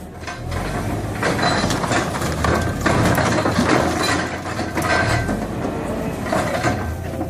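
Heavy construction machinery working: an engine running under irregular metallic clanking and scraping.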